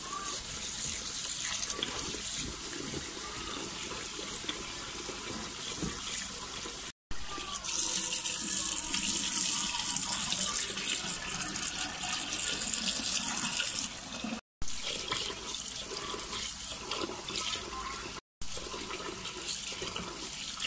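Kitchen tap running a steady stream into a glass bowl of red lentils in a stainless steel sink, splashing and churning the water as the lentils are rinsed. The sound breaks off for an instant three times.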